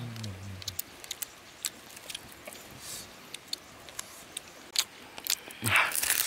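Close-up eating sounds: scattered lip smacks and small clicks as grilled fish is picked and eaten off the bone, with a short hummed 'mm' at the start and a louder noisy bite near the end as the fish backbone is bitten.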